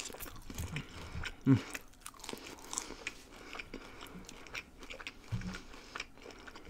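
Close-miked chewing and crunching of a crisp strip of vegan bacon: a string of short, crisp crackles and clicks from the mouth.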